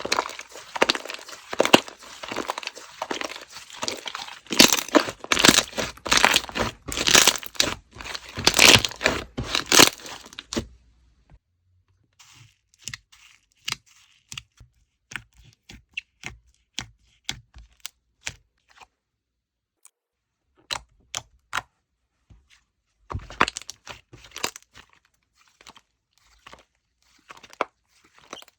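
Slime being squished and stretched by hand: dense crackling and popping for the first ten seconds or so, then sparse, separate clicks and pops.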